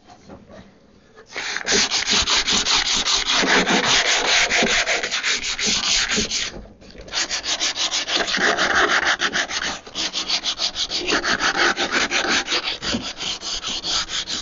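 Sandpaper rubbed by hand over a wooden cabinet's finished surface in quick back-and-forth strokes, several a second. It starts about a second in and breaks off briefly about halfway. The sanding scuffs away loose factory top coat down to raw wood.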